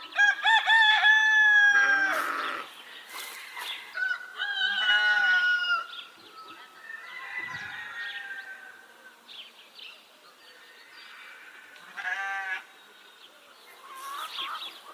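Rooster crowing: two long, drawn-out crows about four seconds apart, followed by fainter, shorter calls.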